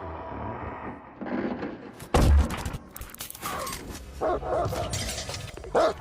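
Fast-cut collage of cinematic special effects: a low hum, then a sudden loud hit about two seconds in, followed by a rapid run of glitchy clicks, crashes and sliding tones.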